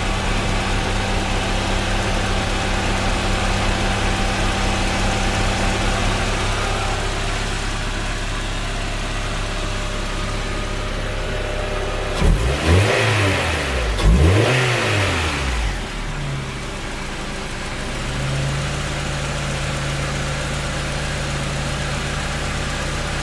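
Honda Prelude's H22A1 2.2-litre four-cylinder engine idling, blipped twice in quick succession about halfway through, then settling back to idle.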